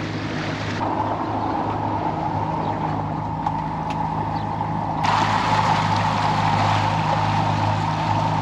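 Boat engine running steadily under way, with a rushing hiss over it that fades about a second in and returns about five seconds in.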